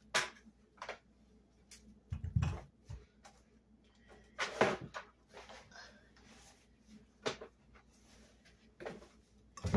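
Handling noises from roller racer go-kart parts being unpacked on a wooden floor: scattered knocks and clicks, a cluster of low thuds about two seconds in, and a longer scrape about halfway through.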